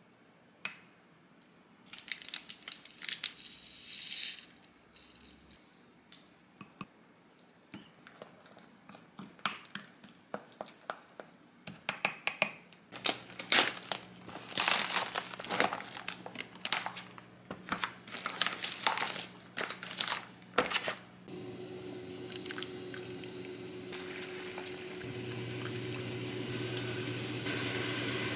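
Plastic cling film and plastic meat trays crinkling and tearing in irregular bursts as they are unwrapped. About three quarters of the way in, this gives way to a steady hiss of water boiling in a pot.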